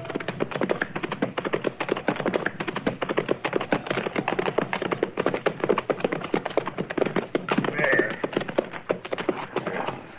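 Hoofbeats of several horses clopping along, a radio-drama sound effect of riders travelling, with a short higher-pitched sound about eight seconds in.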